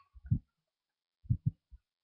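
A few dull, low thumps: two near the start, then a quick pair about a second and a half in, followed by a faint one.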